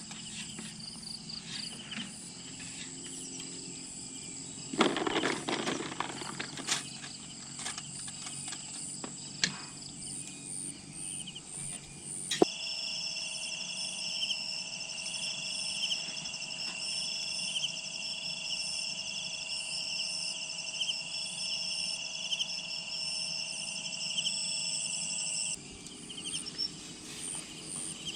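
Insects chirping in several steady high pulsing tones, with a short rustle about five seconds in. The chorus switches abruptly to a louder set of trills about twelve seconds in and changes back near the end.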